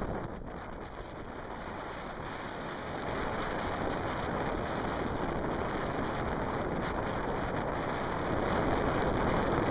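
Steady rushing noise of wind on the microphone, mixed with shallow seawater washing over the reef rock.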